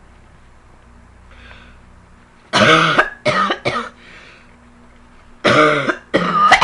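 A girl coughing hard in two fits about three seconds apart. Each fit is one long cough followed by two shorter ones, with her voice sounding in them.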